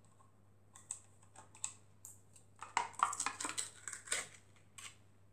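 Plastic shrink-wrap on a jar crinkling and crackling as it is picked open at a corner and peeled off by hand: faint, irregular small crackles and clicks, busiest a little past halfway.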